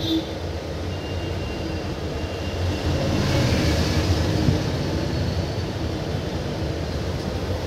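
Train running: a steady low rumble and rushing noise that swells louder about three seconds in.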